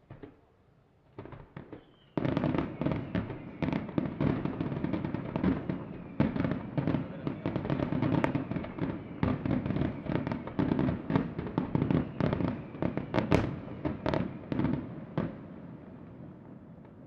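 Aerial fireworks display: a few separate bangs, then about two seconds in a dense barrage of rapid shell bursts that keeps going for over ten seconds before thinning out near the end.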